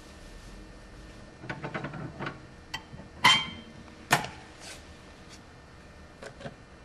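Plastic food trays being handled and knocked into the metal tray holder of a manual tray sealer: a run of light clicks and rattles, then a sharp clank with a brief metallic ring about three seconds in and another knock a second later.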